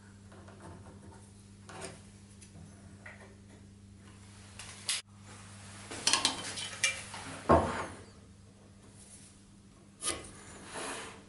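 Hand marking tools being handled on a wooden workbench: a few light clicks, then in the middle a cluster of clinks and knocks ending in one heavier knock as a tool is set down on the wood. Near the end a pencil scratches a line along a square.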